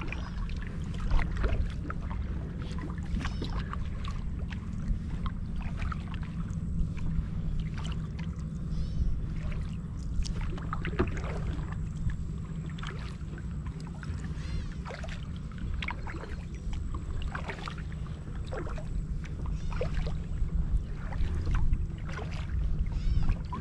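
Kayak paddling: the paddle blades dip and drip water in an irregular run of small splashes and drips over a steady low rumble.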